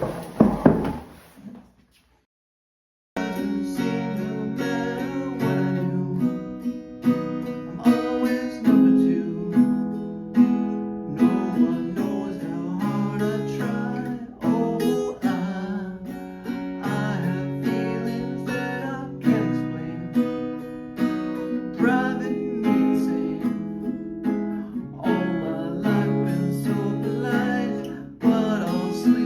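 Background music led by guitar, plucked and strummed, starting abruptly about three seconds in after a short silence.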